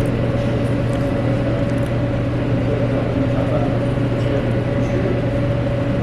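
A steady low mechanical hum with a faint constant higher tone over it, unchanging throughout.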